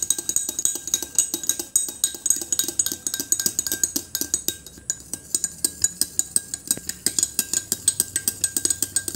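Metal spoon stirring a drink in a drinking glass, clinking quickly and evenly against the glass, about five or six times a second.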